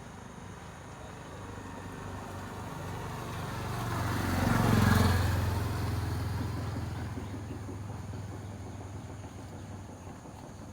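A motor vehicle driving past: engine and road noise swell to their loudest about five seconds in, then fade away.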